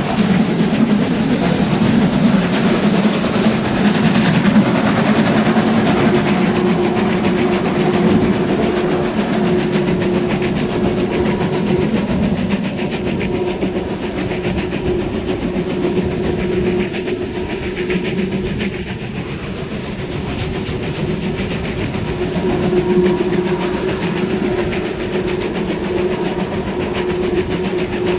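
Steam train running at speed, heard from an open coach window: a steady rumble and clatter of wheels on rails, with the 01 150 steam locomotive working ahead.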